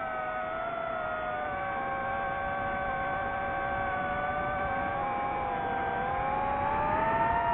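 FPV quadcopter's electric motors whining, several close pitches drifting slowly up and down with the throttle, dipping and then rising near the end.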